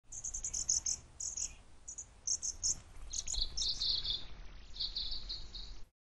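Small songbirds chirping in quick runs of short, high notes. From about three seconds in, a second, slightly lower series of chirps takes over. The sound cuts off just before the end.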